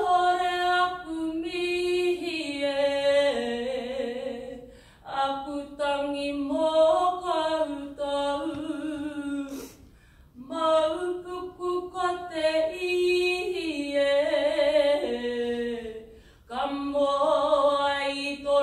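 A woman singing a traditional Māori waiata solo, unaccompanied. She holds long phrases that step down in pitch, broken by three short pauses for breath.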